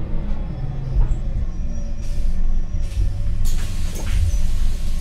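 Cabin sound of a MAN NL243 CNG city bus under way: a steady low rumble of the engine and the road, with a few sharp rattles about three and a half seconds in.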